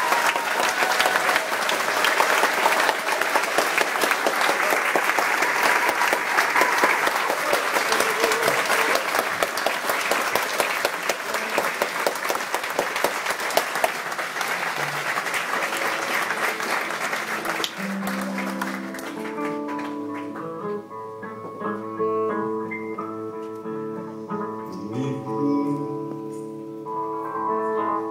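Audience applauding. The clapping dies away about two-thirds of the way through as a guitar starts picking out single held notes.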